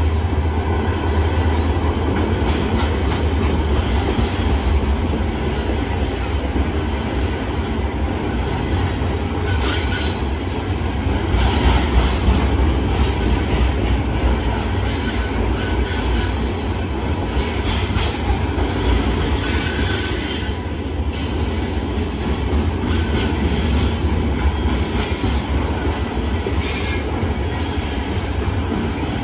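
Freight train's open-top hopper cars rolling past: a steady low rumble of steel wheels on rail. Bursts of high wheel squeal come about ten seconds in, several more between fifteen and twenty seconds, and one near the end.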